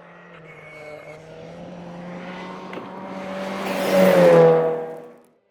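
Rally car approaching at speed, its engine note and tyre noise building to the loudest point about four seconds in, where the pitch dips slightly as it passes. The sound cuts off abruptly just before the end.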